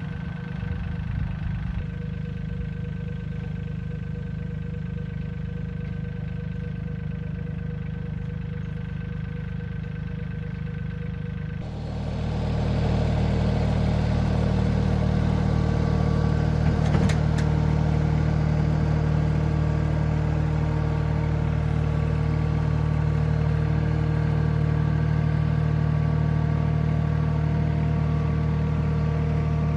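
An engine running steadily at idle, growing louder and fuller about twelve seconds in and then holding steady.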